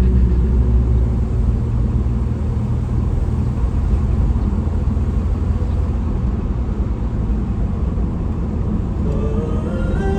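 4x4 vehicle driving, a steady low rumble of engine and tyres, with music coming in near the end.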